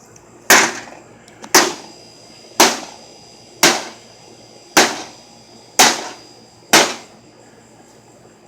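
A hammer striking a microwave oven seven times at a steady rhythm of about one blow a second.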